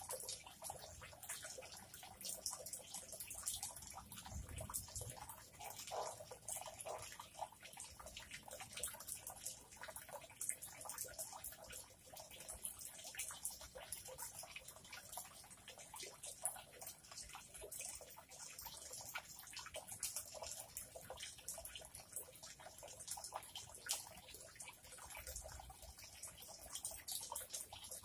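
Faint, steady trickling and splashing of water on a pond's surface, many small drips and splashes running together.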